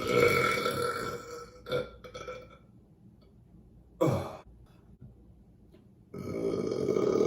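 A person burping several times: a long burp at the start, short ones about two and four seconds in, and another long burp near the end.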